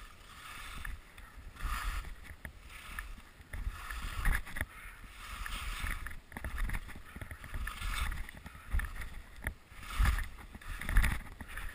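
Skis scraping and swishing through snow in quick turns over moguls, a swish about once a second, with low thumps as the skis hit the bumps.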